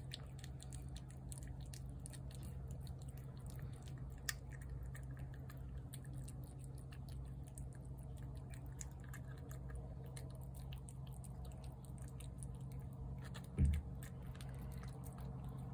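A cat eating wet cat food, chewing and smacking with many small quick wet clicks, over a steady low hum. A single dull thump near the end is the loudest sound.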